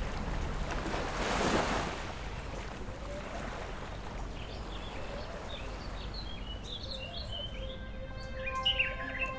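Outdoor ambience: a brief rush of noise about a second and a half in, then birds chirping from about two-thirds of the way through. Soft background music with held notes fades in near the end.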